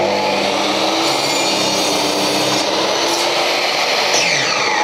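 Makita mitre saw, fitted with a blade for aluminium and wood, running at full speed and cutting through a wooden batten. About four seconds in, the motor is switched off and winds down with a falling whine.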